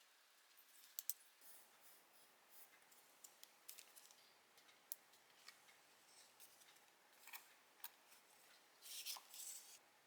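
Faint scissors snipping paper, with scattered small clicks and a short rustle about nine seconds in.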